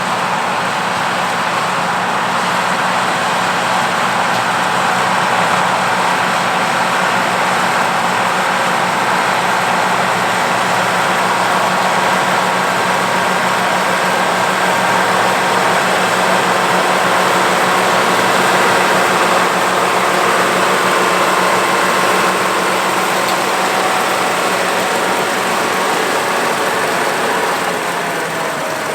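An Oliver 1655 tractor working in the field, pulling and driving a two-row New Idea 324 corn picker while harvesting corn. The engine and the picker's machinery make a steady, loud running drone with a constant low hum, easing slightly near the end.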